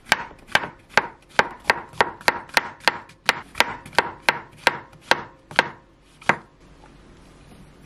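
Kitchen knife slicing button mushrooms on a wooden cutting board: sharp knocks of the blade meeting the wood at about three a second, ending with a last cut about six seconds in.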